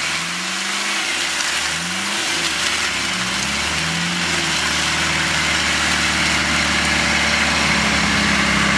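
Land Rover Discovery's engine running as it is pulled through deep mud on a recovery strap, its revs rising and falling a little, over a steady hiss.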